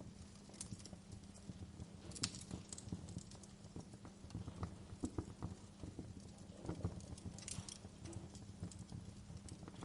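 Campfire crackling, with irregular small pops of burning wood and a couple of sharper snaps, one about two seconds in and one about seven and a half seconds in.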